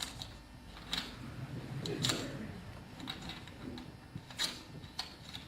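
A few sharp clicks and knocks, roughly one a second, over low background murmur.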